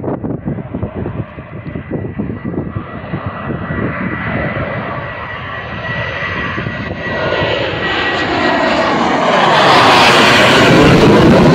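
Sukhoi Flanker-family twin-engine jet flying in low and passing overhead: a thin steady whine is heard first, then it swells into loud jet noise that peaks about ten seconds in as the aircraft goes over. Wind buffets the microphone early on.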